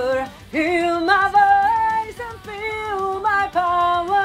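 A woman singing a close-miked lead vocal line, melodic, with several long held notes.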